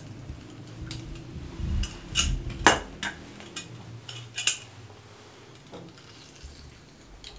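Metal hand-held lemon squeezer clicking and clacking as it is opened, emptied and reloaded with a lemon half over a glass blender jar: a handful of sharp clicks, the loudest a little under three seconds in, and two more a couple of seconds later.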